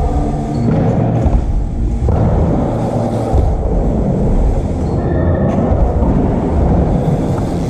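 BMX bike tyres rolling and carving over the surface of a skatepark bowl: a steady low rumble.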